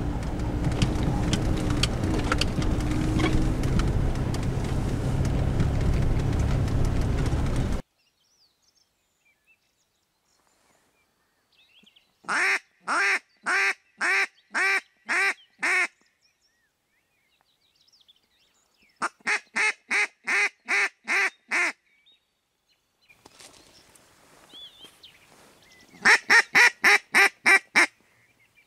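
Engine and road noise of a car driving along a rutted dirt track, heard from inside the cabin, cutting off suddenly about eight seconds in. After that come three runs of loud hen-duck quacking, each a quick, even series of eight to ten quacks: the calling used to bring drakes in to a decoy.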